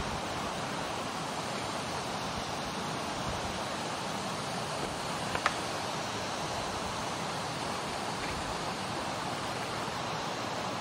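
A steady, even rushing noise with no distinct source, and one short sharp click about five and a half seconds in.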